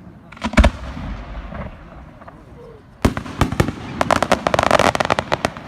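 Fireworks going off: a couple of bangs about half a second in, then a loud bang about three seconds in and a rapid flurry of crackling reports.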